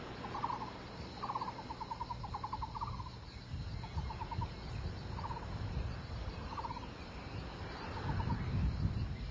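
An animal's rattling call, repeated about eight times; each call is a quick run of pulses lasting under a second. Low rumbling noise runs underneath.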